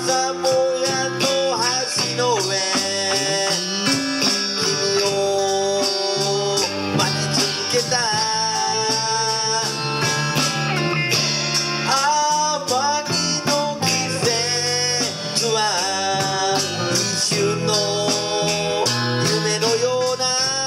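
Live rock band playing: electric guitars, bass and drums, with a guitar line that bends and slides between notes.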